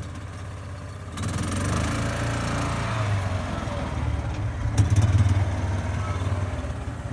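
A small vehicle's engine running, getting louder about a second in, with a single sharp knock a little past the middle.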